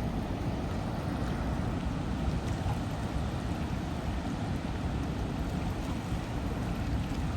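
Steady rushing noise, heaviest in the low end and fluttering: wind on the microphone by open water.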